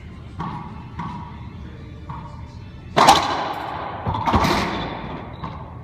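Racquetball serve and rally: a few light knocks of the ball bounced before the serve, then two loud sharp cracks of the ball struck about three seconds in and again about a second later, each ringing on in the enclosed court's echo.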